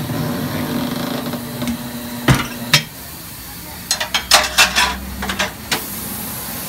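A tire changer's turntable motor runs with a steady hum as a tire is worked onto an alloy rim, then stops about three seconds in, just after two sharp knocks. A quick run of metallic clanks and clicks follows, and a steady hiss starts near the end.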